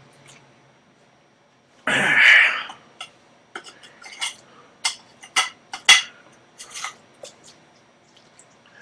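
A loud cough-like burst of breath about two seconds in, then a run of sharp clinks as a utensil knocks and scrapes against a metal pot of macaroni and cheese.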